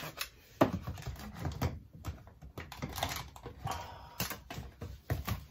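Seasoning containers being shaken and handled over a pan of mashed potatoes: irregular clicks and taps, with a sharper knock about half a second in and another near the end.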